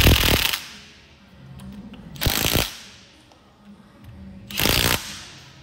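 Cordless impact wrench hammering in three short bursts, each about half a second, as it runs down the head-flange bolts of a boom lift hydraulic cylinder during reassembly.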